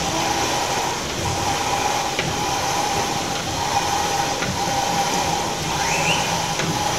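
Steam pumping station machinery running: a steady mechanical hiss and rumble with a constant high hum.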